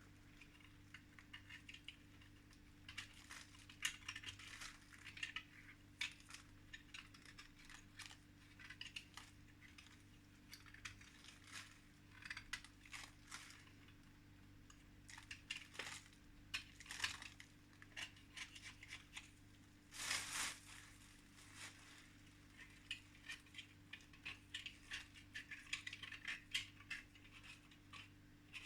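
Faint, irregular scratching, clicking and rubbing of small objects being handled, with a longer scrape about twenty seconds in, over a low steady electrical hum.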